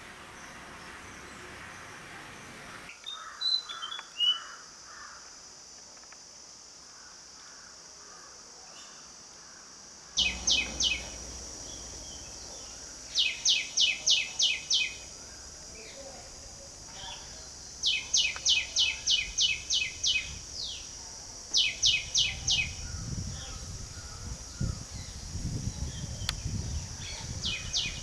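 A bird calling in bursts of rapid, sharp notes, about five to eight to a burst. The bursts come every few seconds from about ten seconds in, over a steady high insect drone. A low rumble runs near the end.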